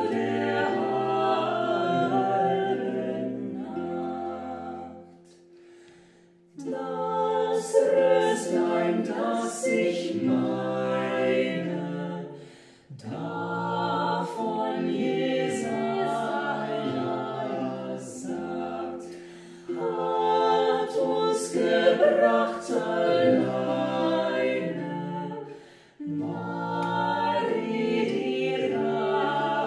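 Unaccompanied voices singing a Christmas carol in several parts, line by line, with short breaks between the phrases.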